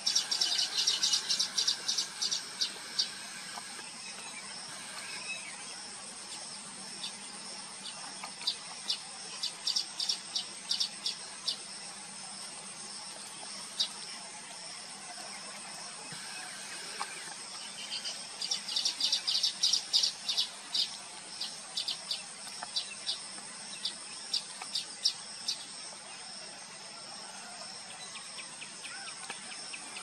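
Baya weavers chattering: rapid runs of short, high chips in two dense bouts, one at the start and one about two-thirds through, with scattered chips between. A steady high-pitched insect drone runs underneath.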